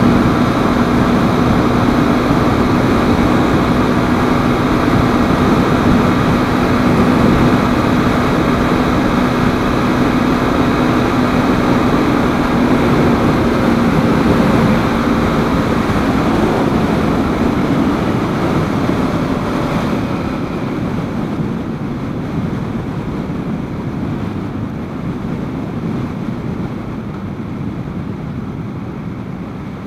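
KTM 390 Duke's single-cylinder engine droning steadily at highway speed under heavy wind noise on the helmet microphone. In the second half the engine note drops away and the wind noise fades as the bike slows down.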